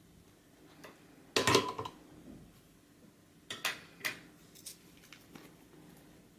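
Small metal soldering tools clinking and tapping on a hard workbench: a short clattering burst about a second and a half in, then a few lighter clicks.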